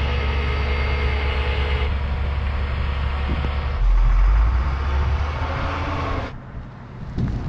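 Flatbed tow truck's engine running with a steady low hum, then louder about four seconds in as the truck pulls away down the road; the sound drops off sharply near the end.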